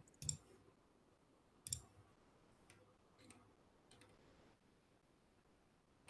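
Near silence with a few faint clicks: two sharper ones just after the start and under two seconds in, then three fainter ones about a second apart.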